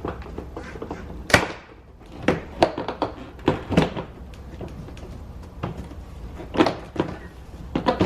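Plastic push-pin clips of a car's inner door trim panel snapping out as the panel is pried off with a screwdriver: a run of separate sharp knocks and snaps, the loudest about a second in.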